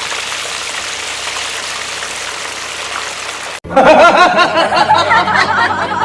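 A steady rushing noise like running water, which cuts off suddenly about three and a half seconds in and gives way to louder warbling whistles.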